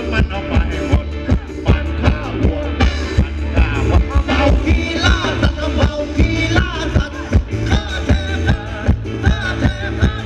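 Live band playing Thai ramwong dance music: a steady drum beat over heavy bass, with a wavering lead melody that comes to the fore about four seconds in.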